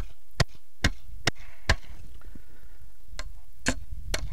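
A hammer tapping at a steady quick pace, about two blows a second. It pauses for about a second and a half near the middle, then starts again.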